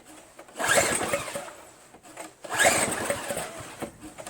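Four-stroke engine of a Craftsman 522 single-stage snowblower being cranked twice, each crank lasting about a second, without catching. The engine has just been primed with fresh gas.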